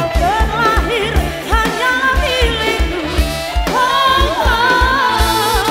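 Live band amplified through a stage sound system: a woman singing a bending, sliding melody over electric guitar, bass and a steady kick-drum beat.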